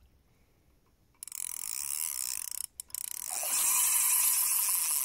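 Carp fishing spinning reel clicking rapidly as its mechanism turns while a hooked grass carp is played. The sound starts suddenly about a second in and breaks off briefly near the middle.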